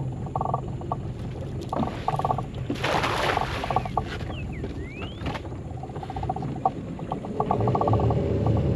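A weighted cast net (atarraya) thrown from a small boat lands on the water about three seconds in, giving a brief splash. A low steady hum runs underneath and grows louder near the end.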